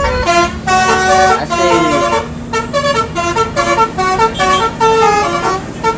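Telolet Basuri bus horn, the multi-trumpet musical horn fitted to Indonesian buses, playing a tune: a quick run of short notes stepping up and down in pitch.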